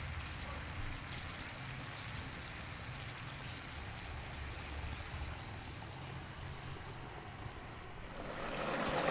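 Pork ribs simmering in sauce in a wok over medium heat, a steady soft hiss of bubbling with a low hum underneath. Near the end the sound grows louder and brighter.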